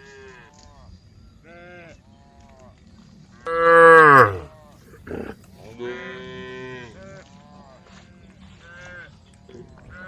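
Cows mooing as they call to the herd. One loud, close moo comes about three and a half seconds in, its pitch dropping at the end, and a second long moo follows around six seconds, with fainter calls from other cows throughout.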